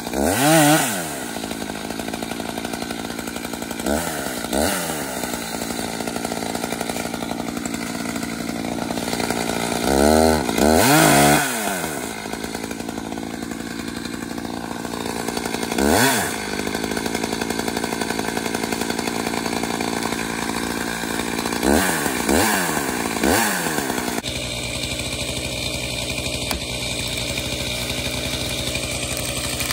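Gas chainsaw cutting into a tree trunk, the engine running steadily and revving up and back down in short bursts several times, twice in quick succession about ten seconds in. About two-thirds of the way through it settles into a steadier, lower engine note.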